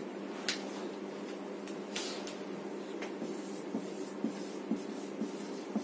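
Marker pen writing on a whiteboard: a few short strokes, the clearest about half a second and two seconds in, then lighter taps, over a steady low hum.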